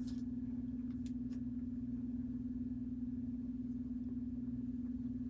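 A steady low electrical hum, one unchanging tone with fainter lower tones beneath it, with a few faint clicks in the first second and a half.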